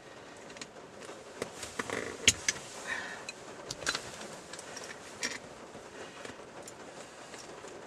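Scattered small clicks and metallic taps as the nut and knob on a console shift lever are worked loose with hands and a tool. The sharpest click comes a little over two seconds in.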